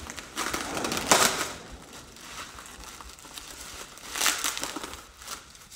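Bubble wrap and a plastic bag crinkling and rustling as they are pulled open by hand to unwrap a steel breastplate, with louder rustles about a second in and again about four seconds in.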